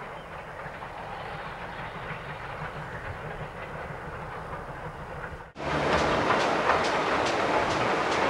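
GWR Dukedog 9017, a 4-4-0 steam locomotive, running with a goods train. It is heard first as a faint, steady distant sound. After a sudden cut about five and a half seconds in, it is much louder, with regular sharp clicks about three times a second.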